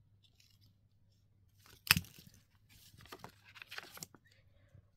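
Crumpled paper being handled in and around an opened plastic Easter egg: one sharp crackle about two seconds in, then a few faint crinkles and clicks.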